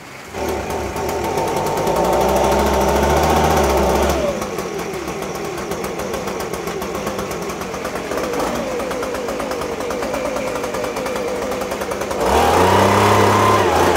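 Handheld petrol leaf blower starting from cold: the engine catches about half a second in and runs fast for a few seconds, settles to a lower, steady idle about four seconds in, and is revved up loud near the end as it starts blowing.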